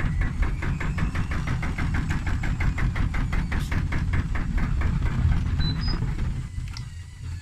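Hotpoint Ariston front-loading washing machine spinning a heavily unbalanced load, fitted with only one shock absorber and no tachometer. The drum knocks about five times a second over a low rumble. About six and a half seconds in, the sound fades as the drum slows.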